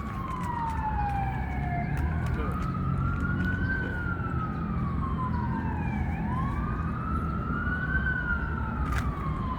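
Emergency vehicle siren wailing slowly up and down, each rise and fall taking about four seconds, with a fainter second wail overlapping, over a low steady rumble.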